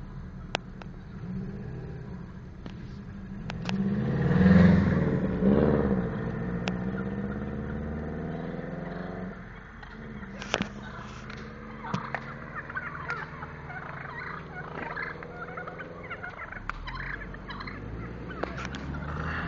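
Wild turkeys gobbling, loudest about four to six seconds in, followed by scattered softer calls, over the steady low hum of a car engine.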